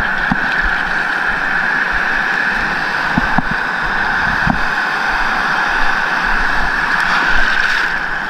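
Steady rushing noise of wind and shallow sea surf on a head-mounted action camera's microphone, with a few soft bumps a little past the middle.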